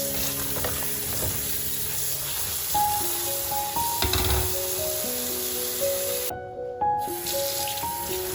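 Food sizzling in a hot pan, a steady hiss, with a soft knock about four seconds in. Gentle background music plays over it.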